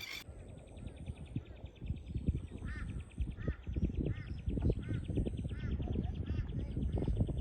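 A bird calling over and over, a short arched call about every two-thirds of a second, over a fast steady ticking and a low rumble of wind on the microphone.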